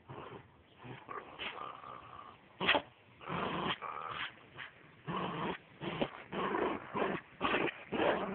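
Small white curly-coated dog growling in short bursts as it lunges at and bites a person's shoe, the bursts coming quicker and louder over the second half.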